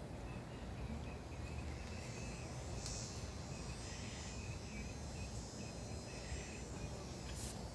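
Insects chirping outdoors in short repeated high trills, over a low steady rumble, with a sharp click near the end.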